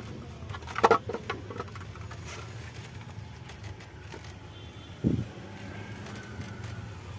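Metal engine parts being handled as the cam cover is lifted off the cylinder head: a sharp knock about a second in and a duller thump about five seconds in, over a steady low hum.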